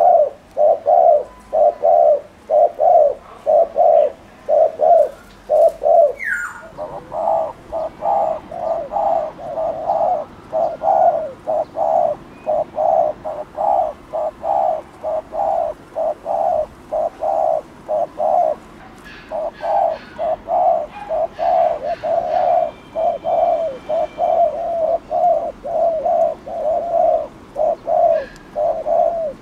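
Spotted dove giving its rapid 'gù' bowing coo: short low coos repeated about two a second, with a brief break about six seconds in.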